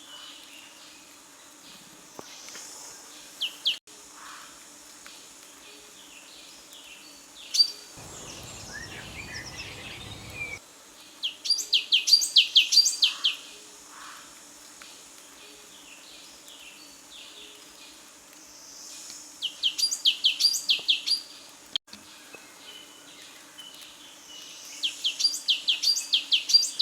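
Birdsong: a bird sings fast runs of high, down-slurred notes, in three bouts of about two seconds each, with a few single calls between them. A short patch of low rumbling noise comes about eight seconds in.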